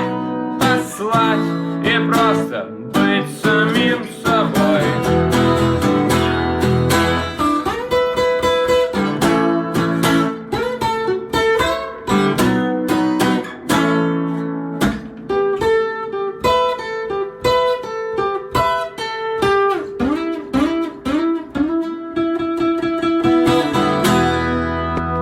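Blues song's instrumental passage on guitar: quick plucked notes and strummed chords, with some notes bent in pitch.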